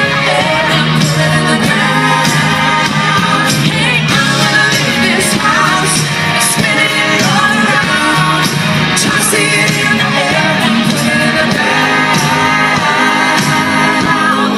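Loud live country band music with singing, played at a steady level throughout.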